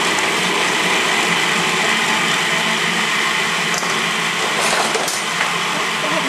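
Food processor running steadily at full speed, its blade churning soaked cashews with agave nectar and vanilla into a thick frosting paste.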